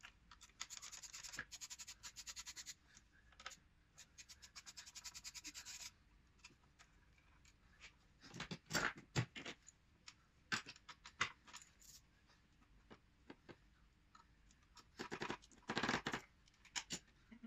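Hand ratchet clicking in two quick, even runs while a bolt is worked on a 1.4 TDI engine, then scattered metallic knocks and clatter of tools and parts being handled in the engine bay. The loudest clatter comes about halfway through and again near the end.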